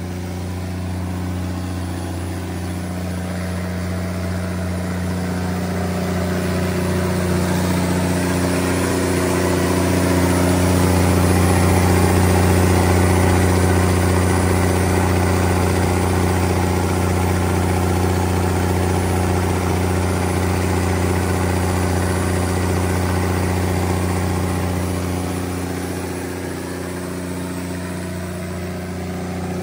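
Cummins QSX15 15-litre inline-six diesel engine of a 500 kW generator set running steadily at constant speed, together with its engine-driven radiator fan. The sound grows louder toward the middle and eases again near the end.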